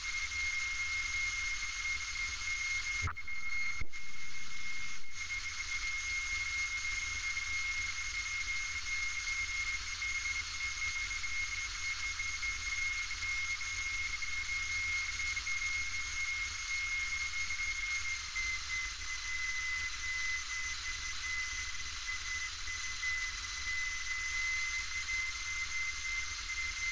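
Steady cabin noise of a single-engine light aircraft in flight: engine and airflow hiss under a high whistling tone that dips slightly in pitch about two-thirds of the way through. A few short clicks sound around three to five seconds in.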